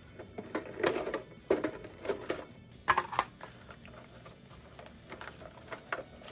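Hands handling Pokémon trading card packs and their packaging: irregular taps, clicks and rustles, loudest about a second in and around three seconds in.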